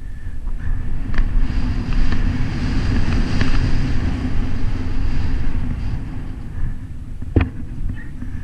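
Wind rushing over a helmet camera's microphone and the rumble of mountain-bike tyres rolling fast over grass and dirt, with a sharp knock about seven seconds in.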